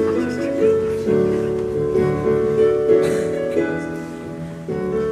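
Instrumental accompaniment music for a stage musical's dance number: slow, held chords that change every second or two, with no singing.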